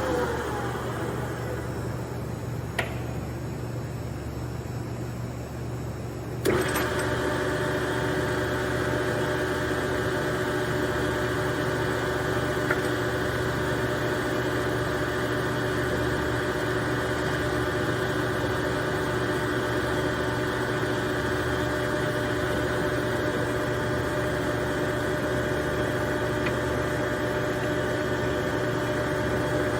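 LeBlond Regal gap bed lathe running on test: the machine's tones wind down in the first second and it goes quieter, with a single click about three seconds in. At about six seconds it starts up again with a sudden jolt and runs steadily, its gearing giving off several steady tones over a low hum that never stops.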